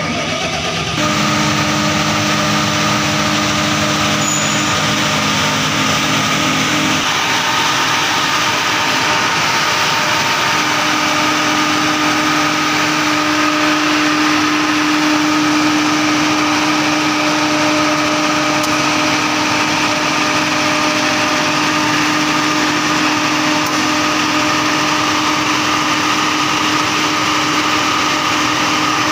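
Diesel engine of a 100 kVA (80 kW) Fortuner generator set starting up at the press of the start button, catching at once and then running steadily at a constant speed.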